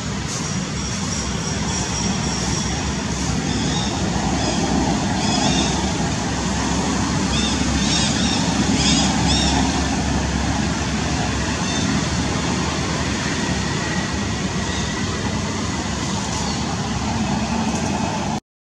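Steady, loud outdoor background rumble with no breaks, with a few short, high chirps about eight to nine seconds in.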